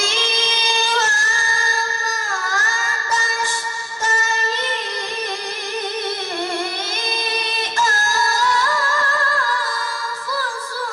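A child qari reciting the Quran in melodic tilawah style into a microphone. He holds long, ornamented notes whose pitch wavers and curls, pausing briefly for breath about 4 and 8 seconds in.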